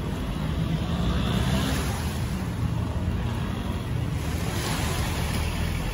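Small sea waves washing at the shore, swelling twice, with wind rumbling on the microphone.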